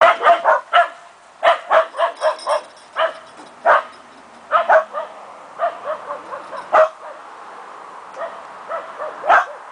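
A dog barking in short, sharp yips, in quick runs of two to five with brief pauses between, more spaced out in the second half.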